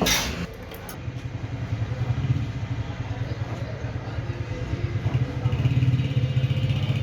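An engine running with a fast, even firing pulse, getting louder about five seconds in, after a brief hiss at the very start.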